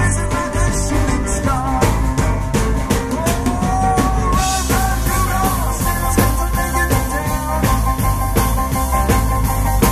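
Live rock band playing: electric guitars, bass guitar and a drum kit, loud and steady.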